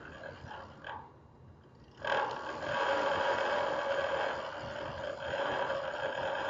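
Well inspection camera and its cable rubbing against the inside of a deep drilled well as it is lowered: a scraping sound, then from about two seconds in a loud, steady groaning tone.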